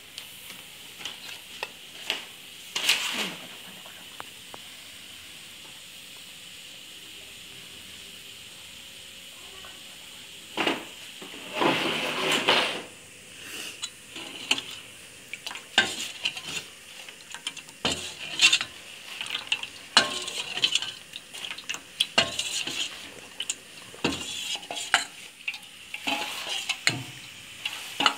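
A steel spoon stirring rice-flour batter in a steel bowl, clinking and scraping against the metal repeatedly from about ten seconds in, after a few scattered clicks. Under it runs a steady faint sizzle of salt water drying on the hot pitha mold.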